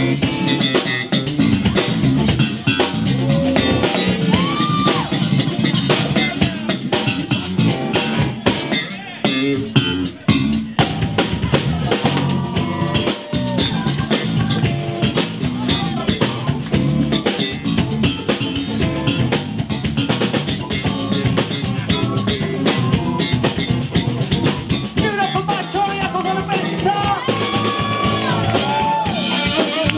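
Live blues band playing: a Fender Nocaster electric guitar takes the lead with bent notes over electric bass and drum kit.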